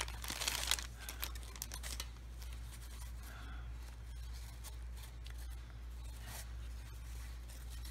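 Crinkling of a clear cellophane bag and rustling of paper crafts being handled, busiest in the first second, then fainter scattered rustles and ticks, with a steady low hum underneath.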